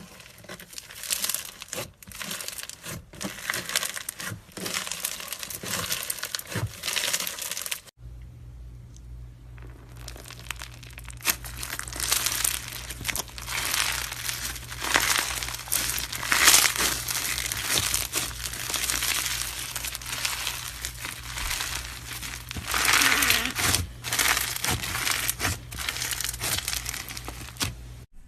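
Crunchy slime being squeezed and kneaded by hand close to the microphone, giving dense, irregular crackling and crinkling. There is a short break about eight seconds in.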